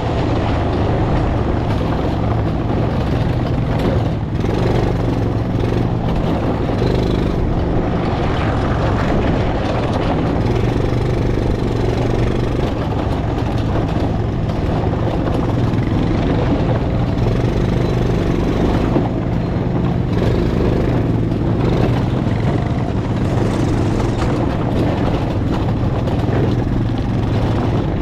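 A vehicle engine running steadily, heard from on board with the rumble of the ride.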